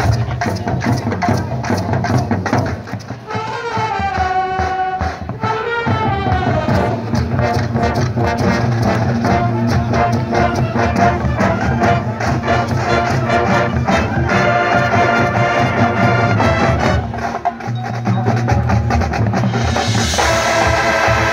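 High school marching band playing its field show: the brass sections hold pitched notes over a steady beat from the drumline and the sideline front-ensemble percussion.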